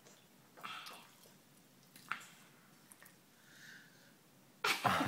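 A toddler drinking water, with faint sipping and swallowing sounds. Near the end comes a sudden loud, breathy 'kaa' exhale, the satisfied sound after a drink.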